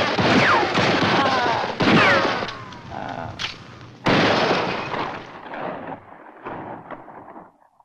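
Movie shootout sound effects: a dense volley of gunshots with a man yelling, then a second loud burst about four seconds in that dies away.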